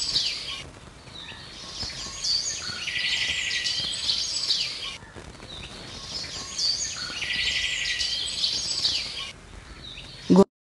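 Birdsong: several birds chirping and twittering in quick high calls, with a short break about five seconds in.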